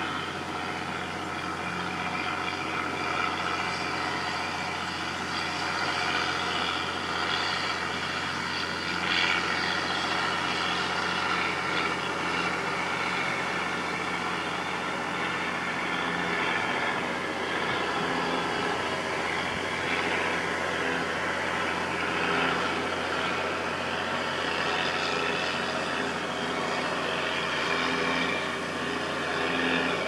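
Steady background noise of road traffic, an even rumble and hiss that holds throughout.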